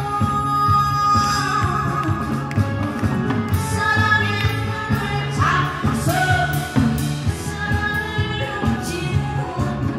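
A woman singing through a PA speaker over amplified music with a steady drum beat.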